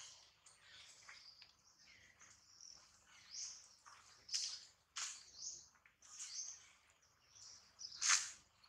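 Faint, scattered high-pitched animal chirps and squeaks, short and irregular, with the loudest sharp call about eight seconds in.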